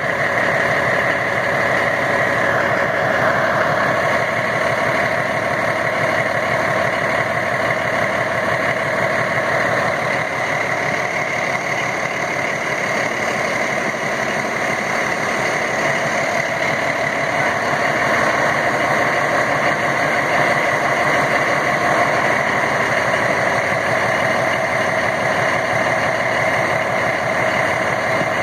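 Big P43 diesel-driven compressor running steadily at a constant speed, a continuous engine drone with steady higher tones from the compressor.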